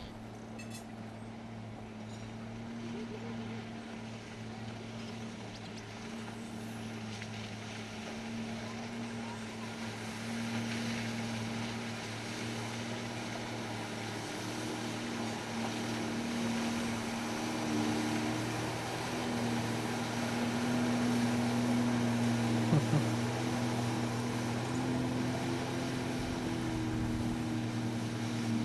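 Watercraft engine running at a steady speed with a constant low hum, slowly growing louder. Two short thumps come about three-quarters of the way through.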